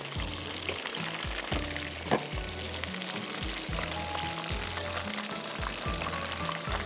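Rice-flour-coated chicken pieces deep-frying in a wok of hot oil, a steady sizzle, with soft background music underneath.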